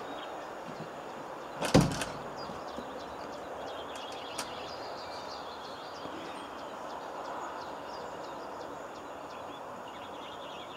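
Steady outdoor background noise with faint high ticking. About two seconds in there is a short, loud clatter of knocks, and a smaller click follows a couple of seconds later.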